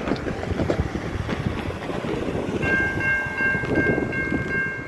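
Rumble and clatter of an approaching freight train on the rails. About two and a half seconds in, a railroad crossing warning bell starts ringing steadily.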